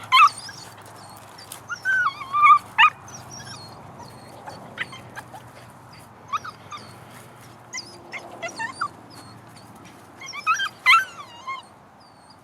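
Dutch Shepherd puppy whining and yipping in short high-pitched bouts, loudest about two seconds in and again near the end.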